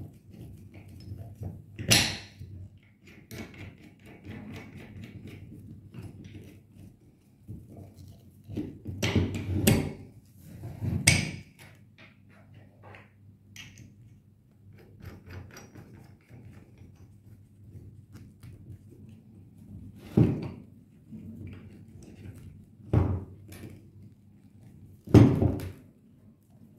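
Metal stretcher plates, flange and bolts of a rubber expansion joint being handled and fitted by hand on a tabletop: scattered light clinks and rustling, with about six louder knocks as the metal parts are bumped together or set down on the table.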